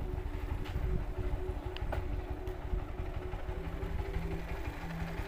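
Motorcycle engine running at low speed with a steady hum and a low rumble; about three and a half seconds in, a lower steady tone comes in as the bike slows.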